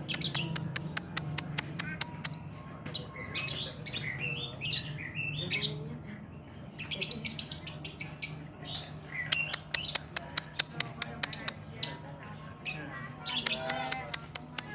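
Young lovebird still learning its song, chattering in rapid trains of clicks mixed with short high chirps and squawks. A steady low hum runs underneath.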